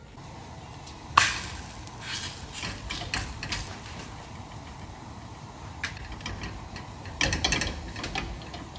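A wet-backed roti being stuck onto a hot iron tawa. There is a sharp slap about a second in, then a steady low sizzle with scattered light ticks and taps as it is pressed down by hand, and a short run of knocks near the end.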